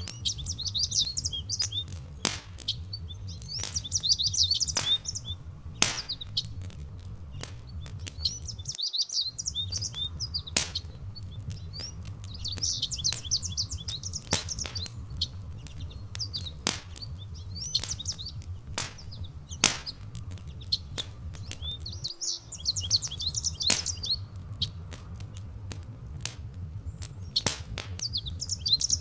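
Songbirds chirping in short bursts of high song every few seconds over the sharp pops and snaps of a crackling wood fire, with a steady low rumble underneath that cuts out briefly twice.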